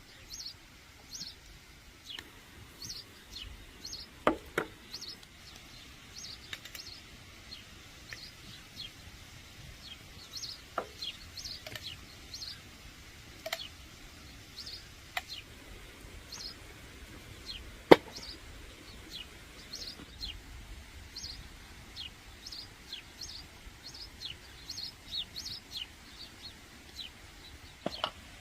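Small birds chirping over and over, with a few scattered sharp knocks, the loudest about two-thirds of the way through.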